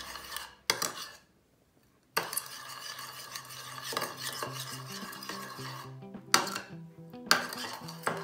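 A metal spoon stirring and scraping around a ceramic bowl of dark soy sauce, mixing it to dissolve the brown sugar, with sharp clinks of the spoon against the bowl. The stirring stops for about a second near the start, then resumes.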